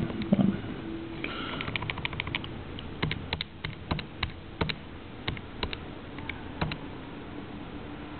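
Keys on a TI-83 Plus graphing calculator's keypad being pressed one after another to type in numbers: a string of small, irregular clicks that thin out near the end.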